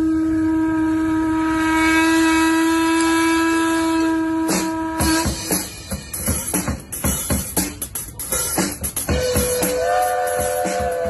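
A paddle steamer's steam whistle holding one long note, played as part of a piece of music. It cuts off about five seconds in and is followed by a run of drum strikes. Near the end the whistle sounds again at a higher pitch.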